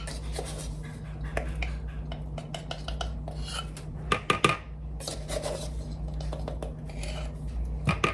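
Kitchen utensils clinking and scraping against a mixing bowl in irregular strokes, with a quick run of sharper knocks about halfway through.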